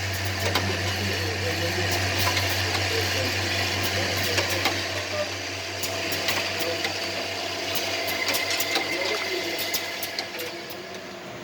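Automated laser welding machine for plastic water drippers running: a steady low motor hum with frequent, irregular mechanical clicks and clacks from its handling mechanism. The hum fades near the end.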